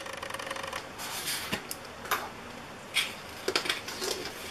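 Plastic kitchen containers being handled on a counter: a scatter of short clicks, knocks and light rustling as a container is taken down from a shelf and its lid twisted open.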